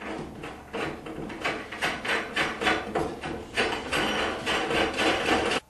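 A 17 mm nut being spun down a threaded rod by hand: quick, uneven metal clicking and scraping, several a second, that stops suddenly just before the end.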